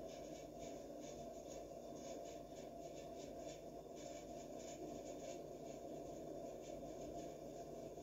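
Faint quick chewing and licking clicks from a cat eating from a bowl, several a second with a short pause about halfway, over a steady low hum.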